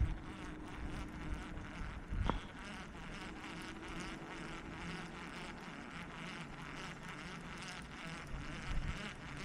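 Insects buzzing in a steady summer chorus, with a fainter drone that fades in and out. There is a single short click about two seconds in.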